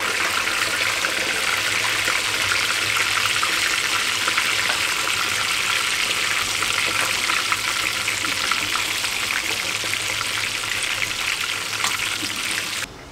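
Hot oil sizzling and crackling steadily around a whole fish frying in a pan. The sizzle cuts off abruptly near the end.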